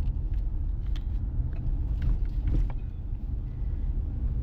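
Steady low rumble of a car in motion heard from inside the cabin: engine and road noise, with a few faint clicks.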